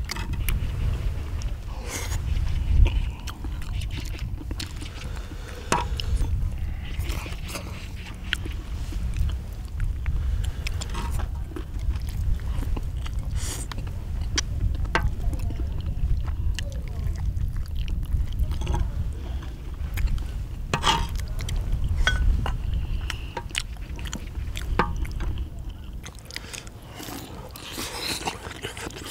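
Mukbang eating: chewing and biting on saucy braised chicken and intestines, with chopsticks and a metal spoon clicking and scraping against a cast-iron pot-lid griddle. A steady low wind rumble on the microphone runs underneath.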